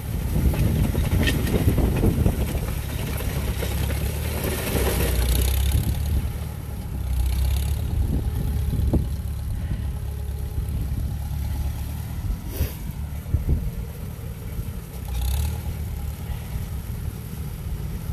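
1953 Farmall tractor's engine running steadily as it drags a grading implement over a dirt driveway, with wind rumbling on the microphone.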